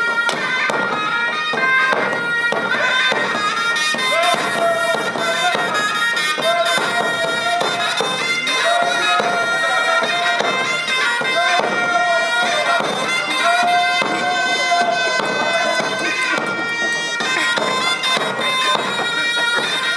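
Background music with a melody of long held notes over a dense, continuous accompaniment, led by a reedy wind-instrument sound.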